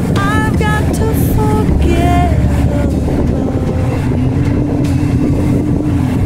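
A boat's engine runs with a steady low rumble, with water churning close alongside. Short high-pitched calls come in the first second and a half.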